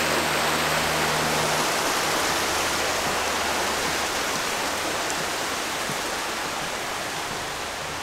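Small forest creek rushing over rocks and fallen logs, a steady watery hiss that slowly gets quieter.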